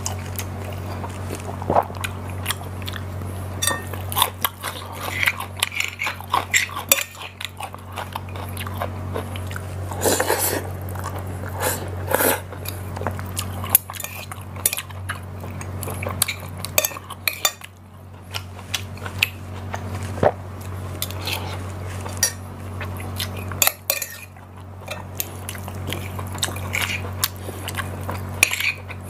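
A metal spoon and fork clinking and scraping on a ceramic plate while eating, in many short irregular clicks, with chewing between them. A steady low hum runs underneath.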